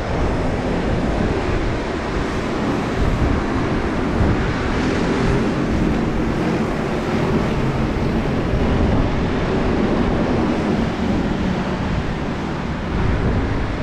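Wind rushing and buffeting over the microphone, with a low steady hum underneath.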